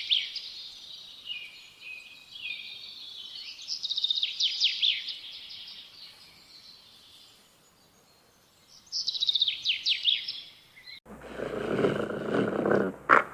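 Songbird singing: several separate phrases of quick, high chirps and trills with quiet pauses between them. About eleven seconds in, a louder, rough, noisy sound cuts in abruptly and the birdsong stops.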